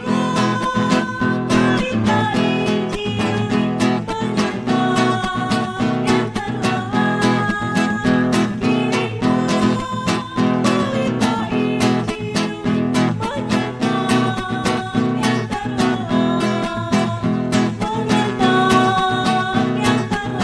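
Women's voices singing a hymn in Indonesian together, over a steadily strummed acoustic guitar.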